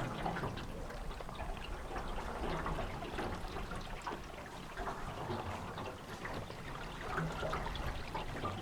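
River water trickling and lapping around a small canoe, a steady run of small splashes.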